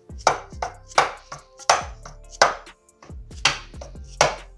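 Dead blow hammer striking the crankcase of a 1987 Honda TRX250R two-stroke engine, about six firm blows with a couple of lighter taps between, to split the crankcase halves apart.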